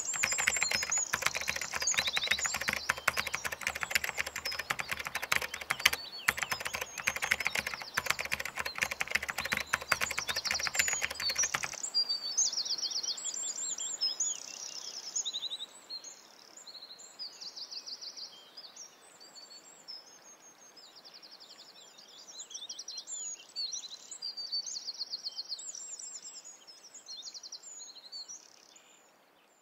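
Small songbirds chirping and trilling, with dense rapid clicking and a faint low drone under them for about the first twelve seconds. The clicking and drone then stop, leaving only the birdsong, which fades out near the end.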